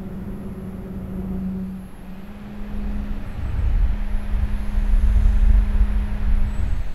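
be quiet! SilentWings 135 mm fan on a Dark Rock Pro 3 CPU cooler running at full speed, about 1700 RPM, heard close up on a microphone: a steady low hum, with a deeper rumble that grows louder from about halfway through.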